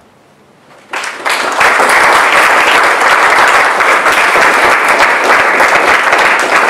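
Audience applauding, the clapping starting about a second in, building quickly and holding loud and steady.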